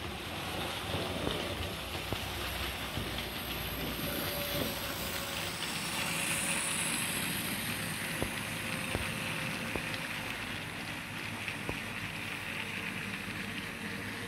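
Model train running on the layout track: a steady rolling noise of wheels on rail, with occasional light clicks.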